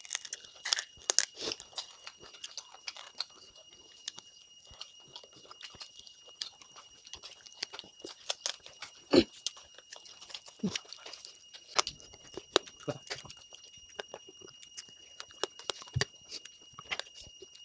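Two people chewing and crunching smoked duck meat close to the microphone: irregular wet mouth clicks and crunches, the loudest about nine seconds in.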